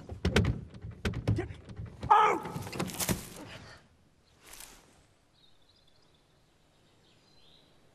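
A scuffle at a car door: a quick run of knocks and thuds, then a loud cry a little after two seconds in, and a short rustle before it goes quiet.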